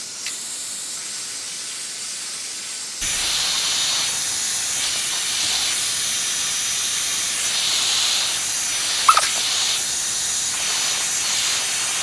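Electric heat gun running, a steady blowing hiss that grows louder about three seconds in, as it shrinks heat-shrink tubing over crimped wire joints. One brief sharp click about nine seconds in.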